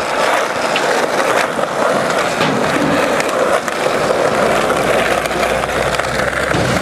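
Skateboard wheels rolling steadily, a continuous rolling noise with a few light clicks from the board.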